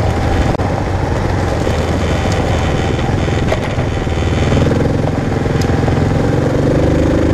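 Kawasaki KLR650's single-cylinder four-stroke engine running under way on a dirt road, the revs picking up a little about halfway through.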